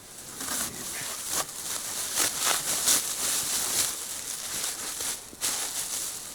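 Irregular crunching and rustling in snow, the sound of a person moving about on foot.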